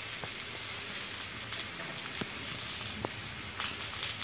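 Onions, peas and potato pieces frying in oil in a nonstick pan: a steady, quiet sizzle with a few faint ticks.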